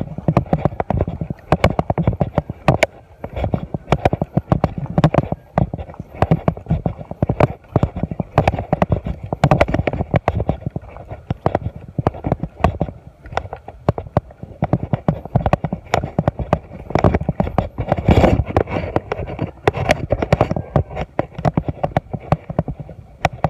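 Footsteps walking along a dirt path: a steady run of loud thuds and crunches, several a second, with a louder knock about three quarters of the way through.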